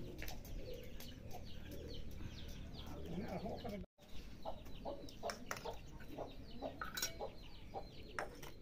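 Chickens clucking, with many short chirping calls, breaking off briefly at a cut about four seconds in. In the second half a few sharp clinks of stainless steel dishes being set down.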